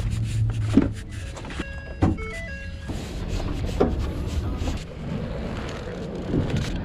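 Low wind rumble and knocks of a hand-held action camera being carried and handled, with a short run of electronic tones stepping between pitches about two seconds in.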